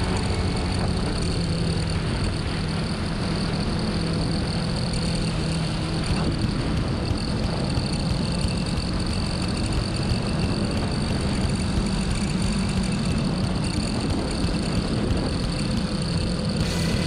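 Motorcycle ridden at speed on a race track: a steady engine note under a dense rush of wind and road noise, with no sharp changes.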